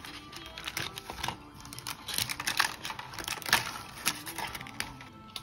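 Thin, crisp-baked brownie sheet topped with sliced almonds and chocolate chips being snapped into pieces by hand: a rapid run of sharp cracks and crackles, with the loudest snaps about two and a half and three and a half seconds in.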